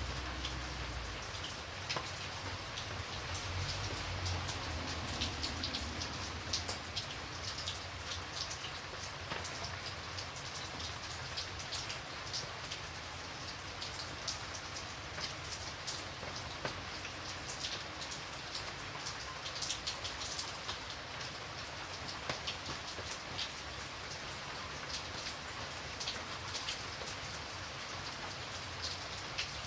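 Light rain falling steadily, a continuous hiss with many individual drops pattering on a surface.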